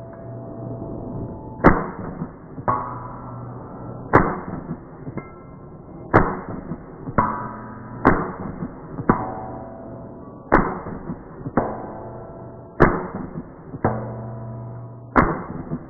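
Ruger PC Carbine, a 9mm pistol-caliber carbine, firing single shots at a steady slow pace, seven in all, one every two to two and a half seconds. Each sharp report is followed about a second later by a weaker bang with a short ringing tail.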